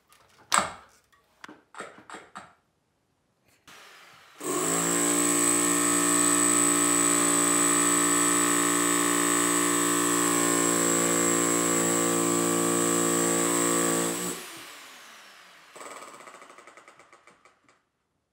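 Corded electric drill running at full speed for about ten seconds, driving a homemade ground tamper (a steel rod and plate pressing on a wooden board) to compact a sand subfloor. There are a few knocks before the drill starts. About fourteen seconds in it cuts out and winds down with a falling whine, followed by a short dying rattle.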